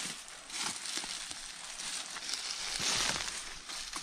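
Footsteps crunching through dry leaves on the forest floor, irregular and loudest about three seconds in.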